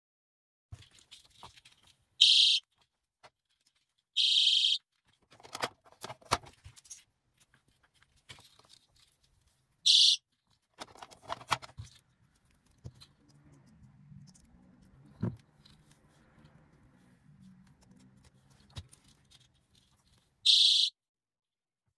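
Plush-doll keychain personal safety alarm sounding in four short, loud, high-pitched bursts, the second one longer, with clicking and rustling of handling and packing in between.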